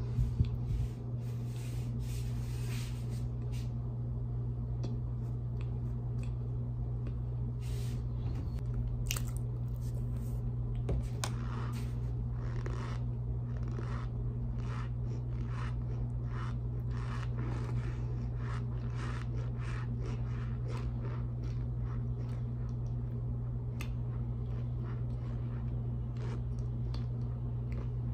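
A mouthful of cornstarch being chewed: many short, crisp crunches at an irregular pace, over a steady low hum.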